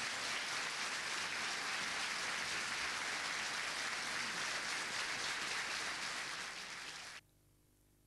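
Audience applauding steadily, easing slightly before cutting off suddenly near the end.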